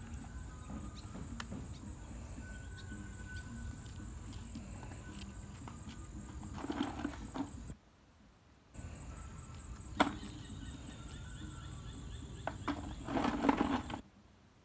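Outdoor ambience of insects trilling steadily over a low rumble, with two short bursts of splashing and rustling as hands work in shallow pond water and mud. There is one sharp click about ten seconds in, and the sound cuts out for about a second near the middle.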